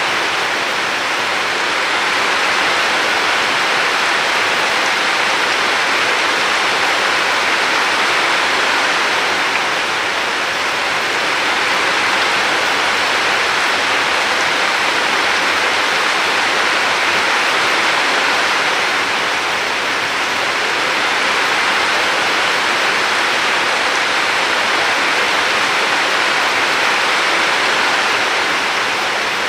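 River water rushing steadily, an even watery hiss with slow, gentle swells in loudness.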